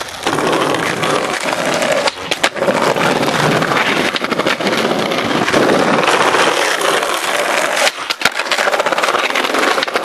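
Skateboard wheels rolling over tiled pavement with a dense, continuous clatter, broken by sharp board clacks about two seconds in and again around eight seconds.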